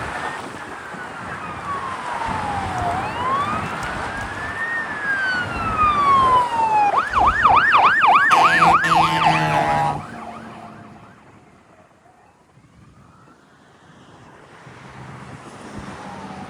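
Emergency vehicle siren in a slow wail, falling and rising in pitch, that switches about seven seconds in to a fast yelp of about four cycles a second, with a low steady horn tone joining near the end of the yelp. The siren cuts off suddenly about ten seconds in, leaving only faint noise.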